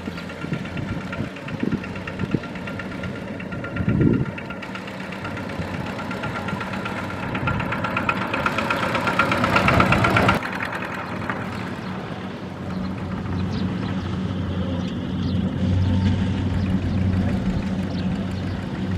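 Single-cylinder diesel engine of a two-wheel walking tractor running with a steady chug while it pulls a trailer. It grows louder and harsher for a couple of seconds around the middle, drops suddenly, then runs on steadier and deeper, with a few short knocks in the first seconds.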